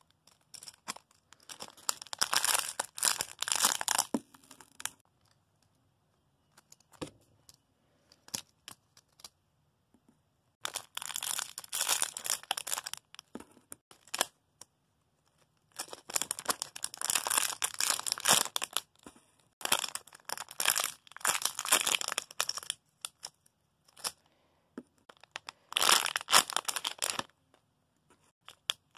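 Squishy toys being gathered up by hand, rustling and crackling in spells of a few seconds with short pauses between.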